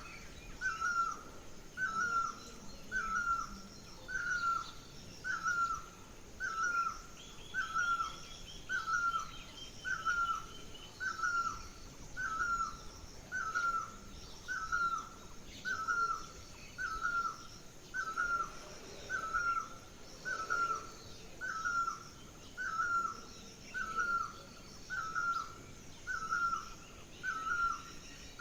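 A bird repeats one short call about once a second, very evenly, over fainter chirps of other birds higher up, with a brief trill around a third of the way in.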